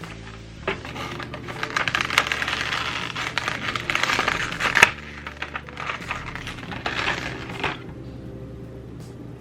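Small plastic keycaps from a novelty accent kit clicking and clattering against each other as they are handled. The clatter starts under a second in, is busiest in the middle, and dies away near the end.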